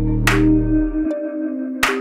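Electronic background music: a held synth chord over a deep bass note that cuts off about a second in, with two sharp drum hits.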